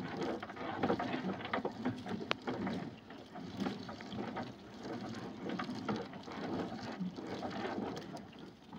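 Wet gill net being hauled hand over hand into a small boat: water dripping and splashing off the mesh, with many small irregular taps and rustles as the net and caught fish come over the gunwale.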